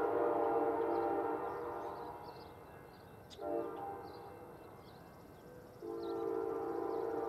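Five-chime K5LA air horn on an approaching Amtrak locomotive, sounding a grade-crossing signal. A long blast trails off, a short blast follows about three seconds in, and another long blast starts near the end. Birds chirp faintly.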